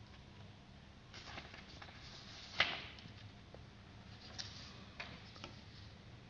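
Sheets of printed paper being handled and shifted in the hands: soft rustling, a sharp paper crackle about two and a half seconds in, and a few smaller crackles near the end.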